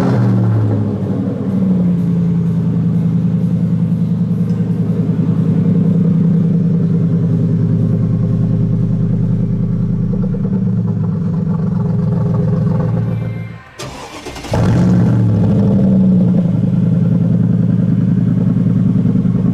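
Mercedes-Benz SLR McLaren's supercharged V8 firing up and settling into a steady idle. About fourteen seconds in the sound drops away briefly, then the engine fires again and settles back to idle.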